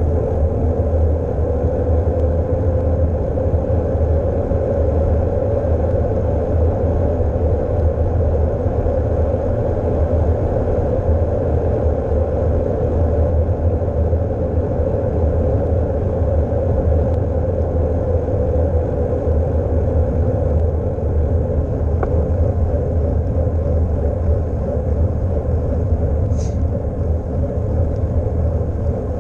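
Wind buffeting the microphone of a bicycle-mounted GoPro while riding, a steady low rumble, over a steady hum of road noise.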